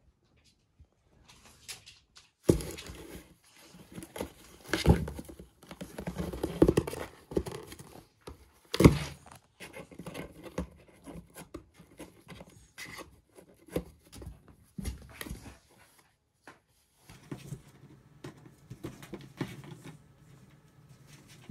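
A kitten scrambling in a cardboard box and clawing at it, with irregular knocks and scrapes against the cardboard; the loudest knock comes about nine seconds in. The knocking stops after about sixteen seconds.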